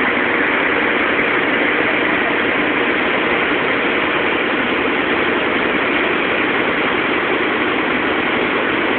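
A large fire in stacked firewood burning, a loud, steady rush of noise with no break.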